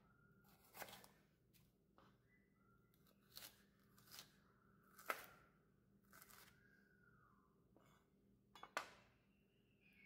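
Santoku knife slicing a red bell pepper on a plastic cutting board: about six separate cuts at an uneven pace, each a crisp crunch through the pepper ending in a tap on the board. The loudest cuts come a little past halfway and near the end.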